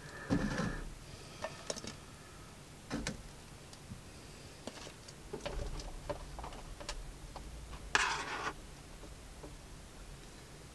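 Kitchen handling sounds: metal tongs clicking against a roasting tray and plate, with scattered light knocks as things are set down. About eight seconds in, a short rattling rush as cooked vegetables are tipped from a colander onto the plate.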